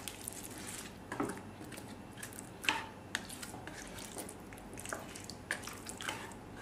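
A spoon mixing thick chicken curry in a non-stick karahi: soft squelching of the gravy with scattered light taps and scrapes of the spoon against the pan, the sharpest a little under three seconds in.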